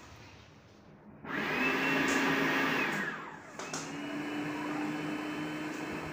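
Electric food processor motor chopping a green mixture of chillies and coriander, run in two pulses: it starts about a second in with a steady whine, winds down after about two seconds, then starts again a moment later and keeps running.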